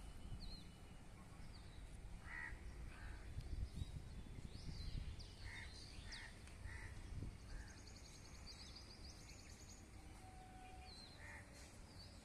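Quiet outdoor ambience of birds calling: a string of short calls spaced about half a second apart, scattered high chirps, and a fast high trill near the middle, over a low steady rumble.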